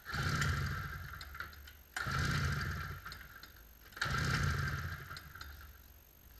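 Recoil pull starter of a 1996 Polaris Indy 500 snowmobile yanked three times, about two seconds apart, each pull whirring and turning the two-stroke twin over in a quick run of compression pulses that fades out; this is cranking for a compression test, which reads about 125 to 130 psi.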